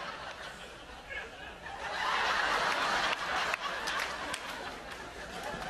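Audience laughing, swelling about two seconds in, with scattered claps starting among the laughter.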